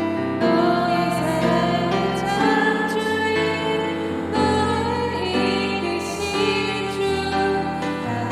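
Worship song: a woman singing held notes over instrumental accompaniment.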